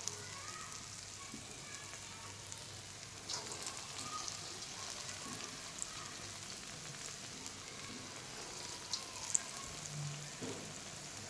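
Chana dal vadas (lentil fritters) deep-frying in hot oil: a steady sizzle with a few sharp pops.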